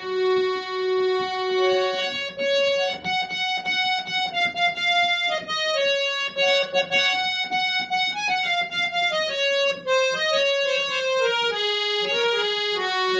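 Instrumental music: a single melody played on a keyboard with a reedy, accordion-like voice, moving in short quick notes that step downward over the last few seconds.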